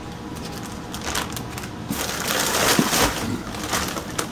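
Plastic bags crinkling and rustling as a zip-top bag is pulled open and a bag of frozen fillets is handled. The rustling is loudest about two to three seconds in.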